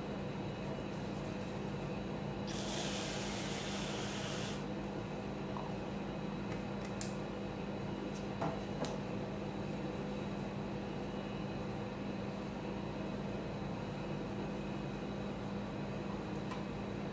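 Aerosol whipped-cream can spraying out cream in one hiss of about two seconds, followed by a few light knocks, over a steady low hum.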